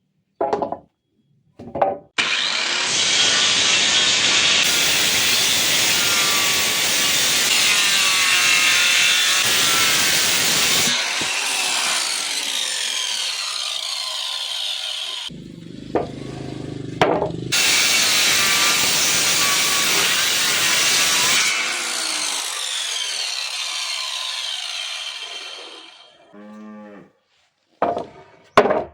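Saw cutting through wooden door stock in two long passes, the first about thirteen seconds and the second about eight, with a few short knocks before, between and after the cuts.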